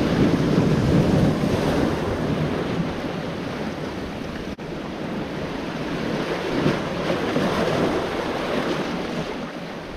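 Sea waves surging and breaking against rocks, with wind buffeting the microphone. The rush swells loudest near the start and again about two-thirds of the way through.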